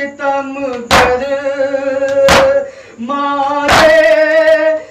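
A noha recited by a singing voice holding long, slow notes, with a crowd's matam (hands beating chests in unison) striking together about every one and a half seconds, three strikes in all.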